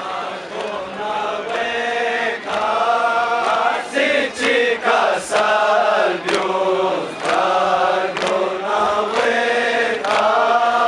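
A crowd of men chanting a Balti noha, a Muharram lament, together in unison. From about the middle on, sharp slaps land roughly once a second: hands striking chests in matam, in time with the chant.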